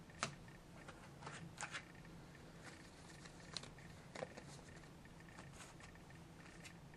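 Trading cards being handled and tidied into a stack: a few faint, scattered clicks and taps of card edges and plastic card holders over a low steady hum.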